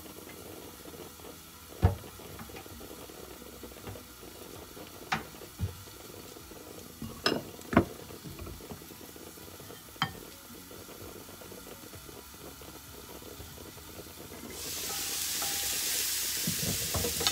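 Mushrooms and carrots sizzling in a covered frying pan, the frying muffled under the lid, with a few sharp clinks of the lid and pan. About three-quarters of the way through, the lid comes off and the sizzling turns suddenly louder and brighter, with a spatula stirring the vegetables near the end.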